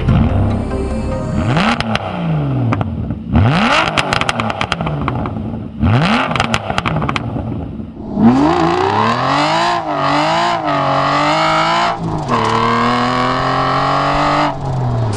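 Aston Martin V12 Vantage's V12 engine revving, its pitch sweeping up and down several times with clusters of sharp pops in the first half. From about eight seconds in it pulls hard with the pitch climbing, eases briefly about twelve seconds in, then climbs again.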